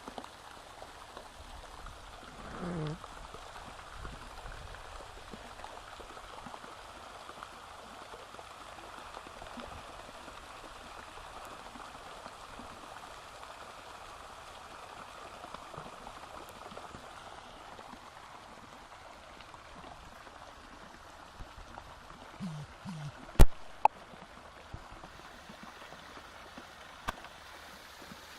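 Steady rushing of running water. A brief pitched sound comes about 3 s in and again shortly before a single sharp click about 23 seconds in, the loudest moment.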